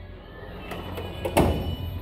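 Metal toolbox drawer rolling on its slides, with one sharp knock about a second and a half in as it shuts or stops.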